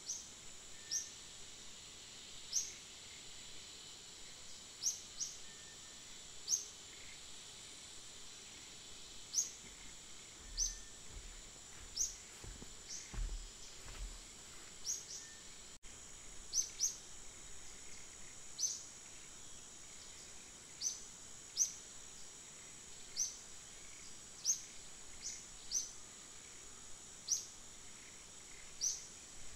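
Forest ambience: a steady high insect drone with a short, high, upward chirp repeated every second or so. There is a brief low rumble near the middle.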